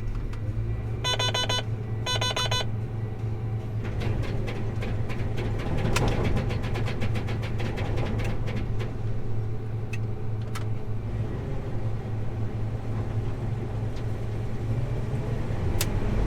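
John Deere combine harvester running, heard from inside the cab as a steady low engine drone. Two short bursts of rapid beeping come about one and two seconds in, likely a cab alarm or monitor, and a run of crackling clicks follows from about four to eleven seconds in.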